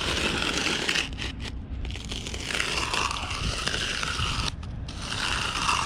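Steel hand groover scraping along the surface of wet concrete, cutting a joint line, in a few long strokes with short breaks between them.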